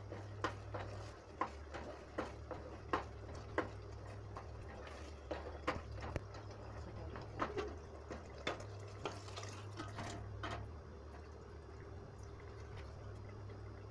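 A spoon stirring a thick meat masala in a pot, knocking and scraping against the pot's sides in irregular clicks, about one every half second to a second, which thin out near the end. A low steady hum runs underneath.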